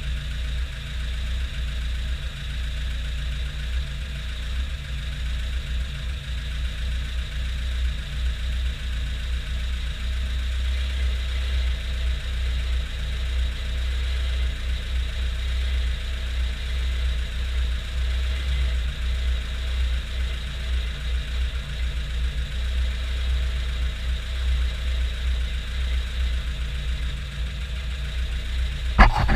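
1992 VAZ 21053's 1500 cc carburetted four-cylinder engine idling steadily with a low, pulsing hum. There is a brief louder sound right at the end.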